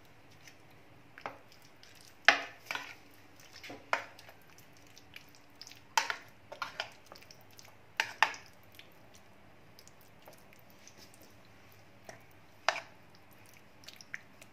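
Prawns being mixed into a thick marinade by hand in a plastic bowl: irregular sharp knocks and clicks of the hand and bowl, several in quick succession, then a quiet stretch and one last knock near the end.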